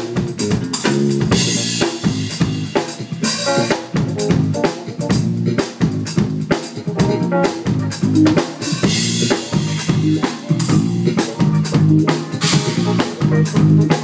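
Live band playing a funk groove: a drum kit with snare and bass drum hits over a moving bass line.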